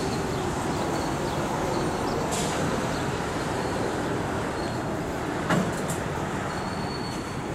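Freight train rolling past, its railcar wheels making a steady rumble on the rails, with a single sharp clank about five and a half seconds in and a faint high wheel squeal starting near the end.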